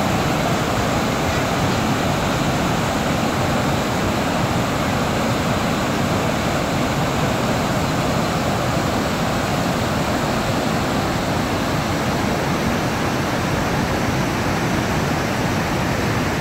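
Waterfall in full flood: a wide sheet of muddy river water crashing over rock ledges into churning rapids, a steady, loud roar.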